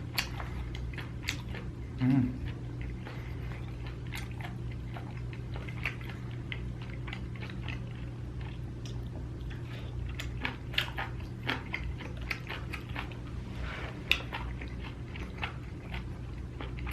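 Close-miked chewing and mouth sounds of a person eating Korean food, with many irregular wet clicks, plus a brief low hum about two seconds in.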